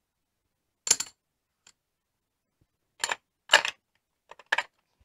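Casino chips clacking together as they are counted and stacked to pay a bet: a quick cluster of sharp clicks about a second in, then several more between three and four and a half seconds.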